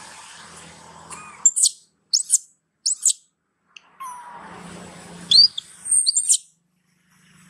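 Juvenile long-tailed macaque screaming at its mother for milk while being weaned: short, high-pitched squeals that sweep in pitch. Several brief ones come in the first half, then a louder cluster about five to six seconds in.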